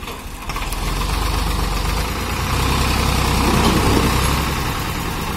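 Modified Escorts 355 DI tractor's diesel engine working under load as it pulls a fully loaded debris trolley over brick rubble and potholes. It gets louder about half a second in and louder again between about three and four seconds in.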